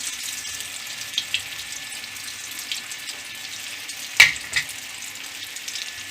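Aloo daal tikkis sizzling in hot oil on a tawa, a steady hiss with scattered small crackles. A sharp clack about four seconds in, followed by a smaller one.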